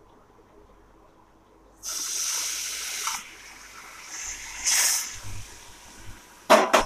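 Smoking-hot mustard oil poured onto a spiced curd and gram-flour masala, sizzling sharply for about a second, then a second shorter sizzle. A few sharp knocks near the end.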